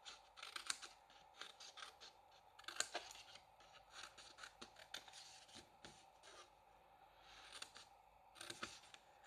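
Scissors snipping quietly through cardstock in a run of short, irregular cuts, with a brief lull about two-thirds of the way through, while the glue tabs are cut out of a folded card blank.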